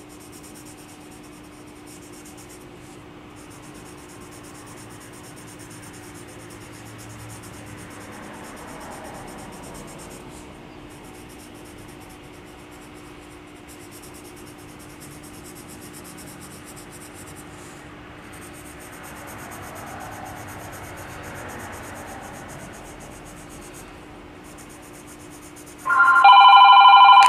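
Colored pencil shading on paper, a soft faint scratching over a steady low hum. Near the end a telephone suddenly starts ringing loudly, an electronic ring of several steady tones.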